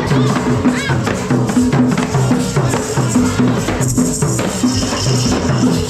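Music with a steady beat: a repeating bass line under busy hand percussion like tambourine and shakers.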